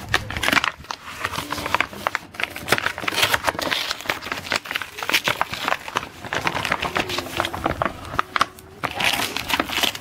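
Brown kraft paper wrapping with masking tape being torn and peeled off by hand: irregular ripping and crinkling.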